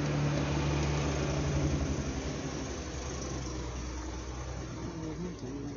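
Small electric motor of a decorative flame-effect box running with a steady low hum, getting quieter after about two seconds.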